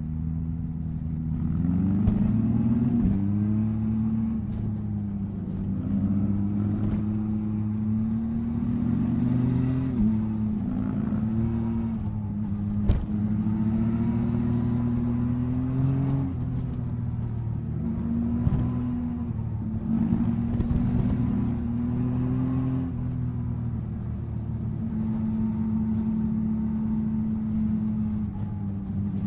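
Yamaha MT-09 SP's three-cylinder engine under way, its pitch rising under acceleration and dropping back with gear changes and easing off the throttle, over and over. A single sharp click about thirteen seconds in.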